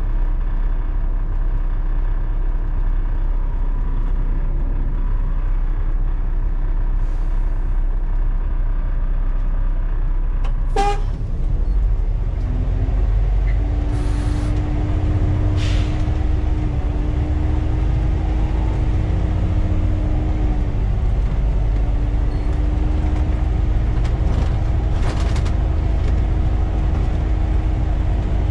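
Volvo B7TL double-decker bus's diesel engine heard from the driver's cab, idling with a deep steady rumble, then pulling away about eleven seconds in with a brief sharp burst of sound. A steady whine joins the engine as the bus gets under way, with a few short hisses of air.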